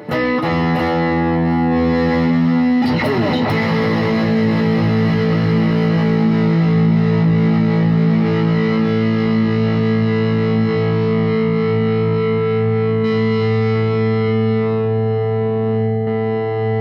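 Gibson SG electric guitar with Bare Knuckle Mule pickups played through a Boss Katana Mk2 100 amp. A distorted chord is struck about three seconds in and left ringing while the amp's knobs are turned. Its tone shifts, and the top end drops away about thirteen seconds in.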